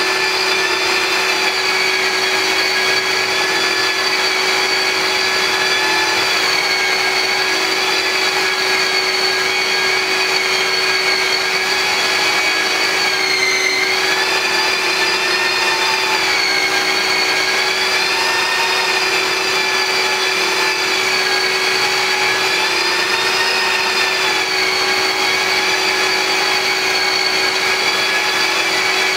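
Long-reach drywall sander and its dust-extraction vacuum running continuously while sanding a ceiling. A steady motor hum and whine, whose higher pitch dips slightly now and then.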